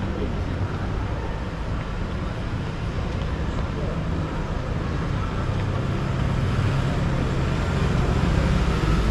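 A motor vehicle's engine running with a low drone, growing louder over the second half, amid street noise and faint voices.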